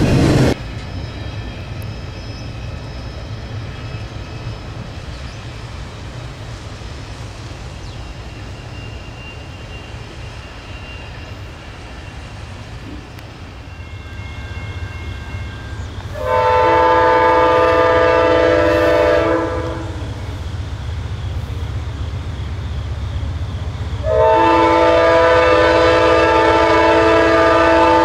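Steady rumble of a passing train, then the multi-chime horn of an Amtrak GE P42DC locomotive sounds two long blasts. The first lasts about three seconds from just past the middle; the second starts near the end and is still sounding as it ends.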